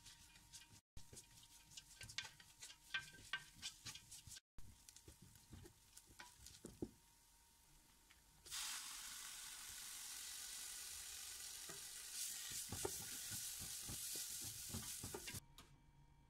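A spatula stirring sliced onions in a non-stick pot, with scattered scrapes and taps. From about eight seconds in, a steady sizzle of the onions frying as they brown, which cuts off abruptly near the end.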